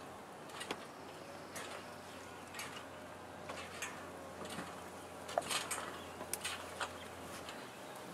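Light, irregular clicks and taps of wooden beehive boxes being handled and settled into place, with a quick run of taps about five to seven seconds in.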